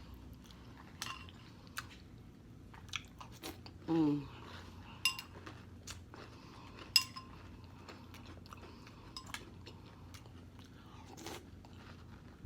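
A person eating Carnival Berry cereal in almond milk: crunching and chewing, with a few spoon clinks against the bowl that ring briefly, and a short murmur about four seconds in.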